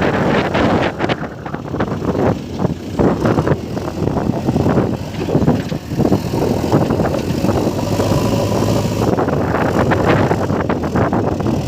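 Diesel engine of heavy machinery running steadily, with irregular knocks and rattles over it and wind on the microphone.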